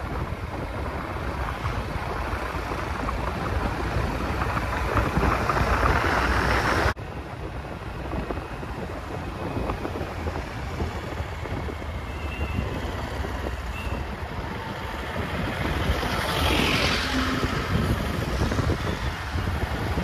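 Steady rush of wind noise on the microphone, broken off abruptly about seven seconds in and picking up again at once.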